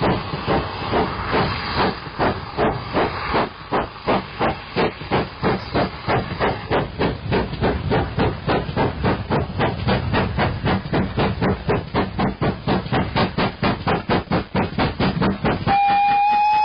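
Steam locomotive working steadily, its exhaust chuffing in an even beat of about three beats a second. Near the end a steady whistle blast begins.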